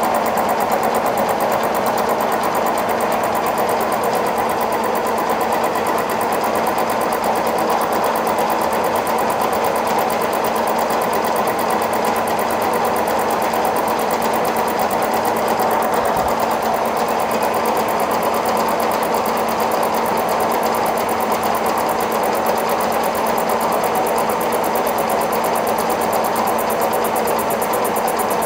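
Kearney & Trecker No. 2 milling machine running under power, its large face mill taking a light finishing pass of about 10 thou across a stainless steel face. The spindle and gearing give a steady hum, with the dense grinding noise of the cut over it.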